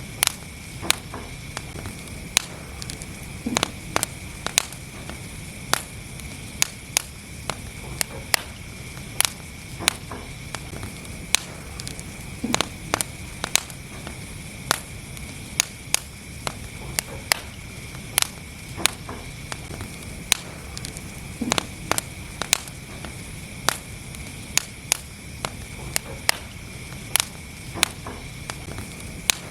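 Wood fire burning in a fireplace: a steady low rumble and hiss with sharp crackles and pops at irregular intervals, a few a second.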